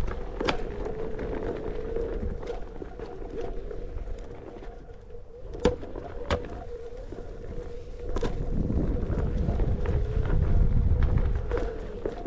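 Onewheel electric board's hub motor whining at a steady pitch that wavers a little with speed, over a low rumble of the tyre rolling on a dirt trail. A few sharp knocks break in along the way.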